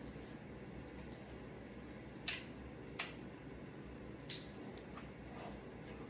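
Quiet steady room hum with two short sharp clicks a little over two seconds in and three seconds in, and a fainter knock a second later: small objects being handled at a workbench.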